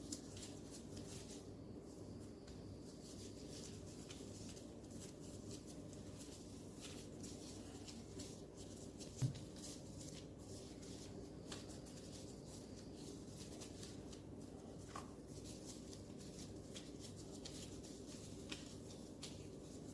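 Faint soft rubbing and light taps of hands shaping dough pieces into balls, over a low steady hum, with one small knock about nine seconds in.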